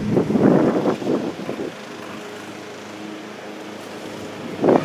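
Plastic frisbee scraping on concrete as a dog noses and bites at it: a few rough scrapes in the first second and a half and another just before the end, over a steady low hum.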